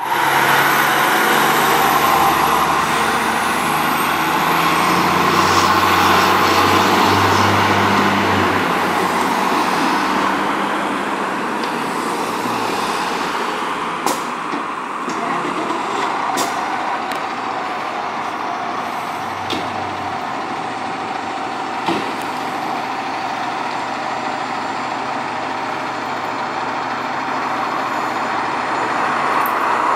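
A 2007 Spartan Gladiator/Smeal pumper's diesel engine pulling away and fading down the street over about the first ten seconds. A steady noise remains, with a sharp click about 14 s in and another about 22 s in. Near the end, a second fire engine running in the station bay grows louder.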